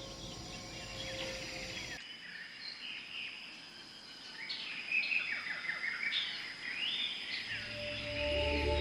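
Birds calling: many short chirps and sliding, yelping calls overlapping, with an abrupt change in the background sound about two seconds in. Soft music with steady low tones fades in near the end.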